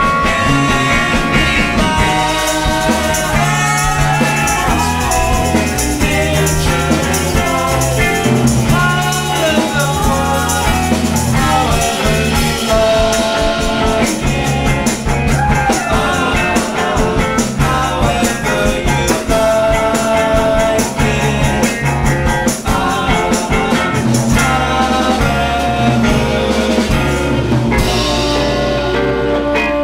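A live band playing a song, with guitar, bass and drums under held melody notes.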